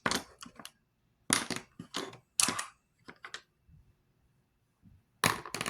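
Makeup brushes and cosmetic containers being handled and rummaged through: a run of clicks and small clatters in short bursts, with a pause of about two seconds before a louder clatter near the end.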